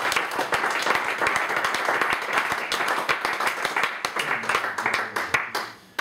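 An audience applauding: many hands clapping densely, fading out abruptly just before the end.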